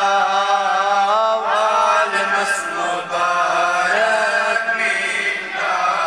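Unaccompanied male voice chanting an Urdu naat in long, held melodic phrases that bend and slide between notes, over a steady low drone.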